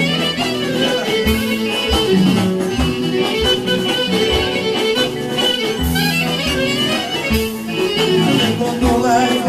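Live Greek folk (dimotika) band playing an instrumental passage: clarinet carrying the melody over electric guitar and a steady drum beat.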